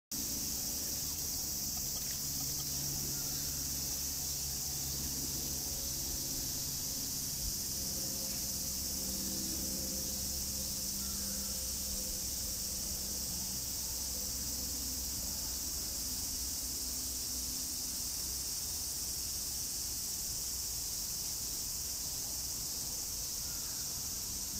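A steady, high-pitched chorus of insects, continuous and unchanging, with a low hum beneath it through roughly the first half.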